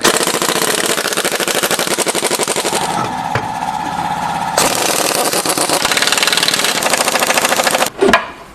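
Impact wrench hammering in one long run of very rapid blows, which stops shortly before the end; it is loosening the fasteners of a car's lower control arm ball joint. A steady whine joins in for a second or two midway.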